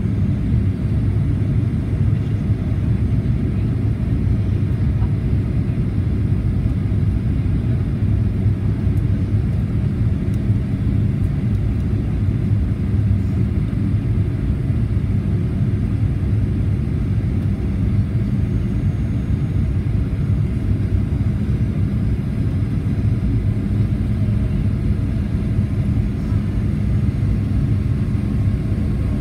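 Steady low rumble of engine and airflow noise inside the cabin of a Boeing 737-800 descending on approach to land, its CFM56-7B engines running at a constant setting.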